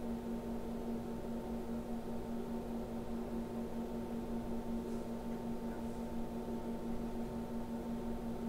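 Steady electrical hum with a few fixed tones, from powered metering test equipment running a live test.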